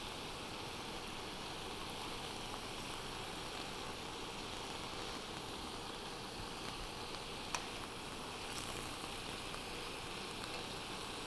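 Cubes of tofu sizzling in a skillet of hot oil and dark sauce, a steady hiss as they brown, with a single light click about seven and a half seconds in.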